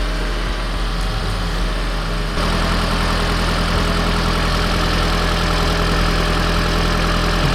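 Toyota Prius α hybrid's 1.8-litre four-cylinder engine running at idle, heard with the bonnet open. About two seconds in, a second steady machine noise with a hiss cuts in and the overall sound gets louder: part of the hybrid system or its cooling fan coming on.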